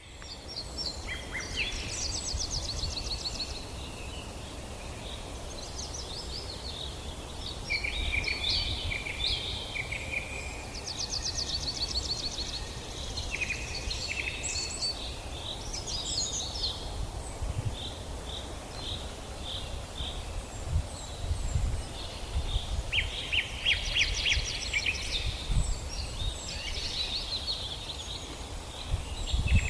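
Several wild birds singing and calling in a forest, overlapping trills, chirps and rapid ticking call series, over a steady low rumble.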